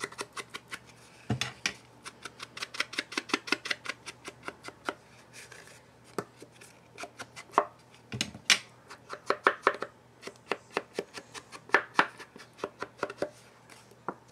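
Ink blending tool dabbed rapidly along the edges of a paper card, a fast run of light taps at several per second, thinning out briefly about halfway through.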